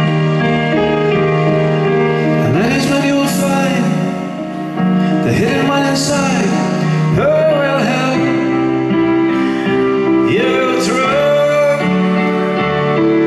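Live concert music: held keyboard chords with a gliding melody line over them, an instrumental passage with no words sung.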